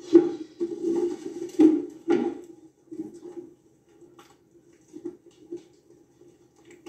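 Film soundtrack played on a computer monitor and picked up by a phone. It carries a few short scraping, rustling noises in the first two seconds or so, then fainter scattered clicks, all over a steady low hum.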